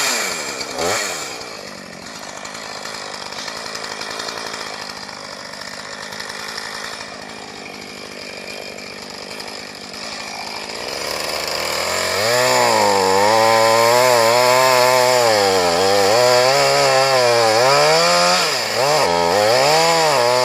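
Husqvarna 445 two-stroke chainsaw cutting into a tree during felling. About twelve seconds in it gets louder, and its engine pitch keeps sagging and climbing back as the chain bogs and recovers in the cut.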